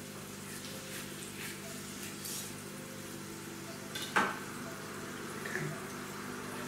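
A kitchen knife set down with a single sharp knock on a cutting board about four seconds in, with a softer knock a little later, over a steady background hiss and faint hum.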